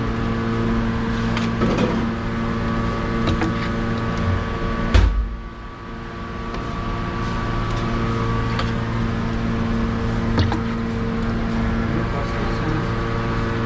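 A steady mechanical hum made of several fixed tones, like a running electric motor, with one sharp thump about five seconds in, after which the sound briefly drops away and builds back up.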